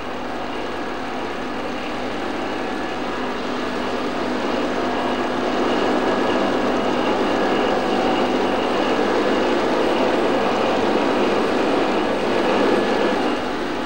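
Steady whirring of a yarn-testing machine, running yarn through its sensors for rare faults, with a few constant tones in the noise; it grows somewhat louder over the first few seconds.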